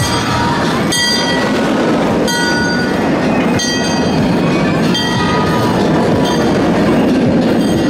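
Narrow-gauge steam train rolling slowly past behind a 1922 Vulcan 2-4-0 tank locomotive, its open passenger cars rumbling steadily over the rails. High-pitched wheel squeals come and go.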